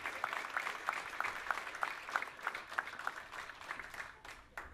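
Audience applauding, the clapping thinning out to a few last claps near the end.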